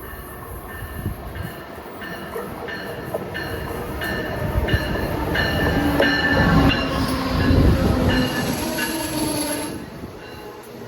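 Train passing close on the rails, growing louder to a peak past the middle and dropping off suddenly near the end, with a regular beat of high-pitched tones about two or three times a second over the rumble.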